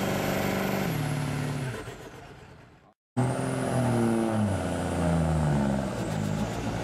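Diesel pickup truck engine with turbo whistle. About a second in, the engine and whistle wind down in pitch after a pull, then fade out to an abrupt cut. A second diesel pickup follows, revving up and down with a high turbo whine.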